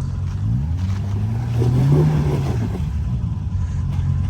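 Side-by-side UTV engine running, its revs climbing from about a second and a half in, peaking around two seconds in, then easing back off.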